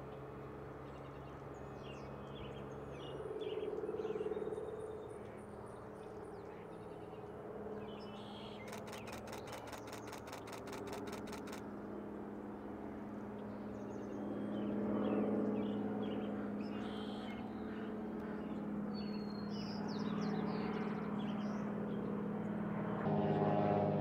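Small songbirds chirping over a steady low hum of distant traffic that swells twice, around 4 s and again about 15 s in. About nine seconds in, a camera shutter fires in a fast burst, roughly six even clicks a second for about three seconds.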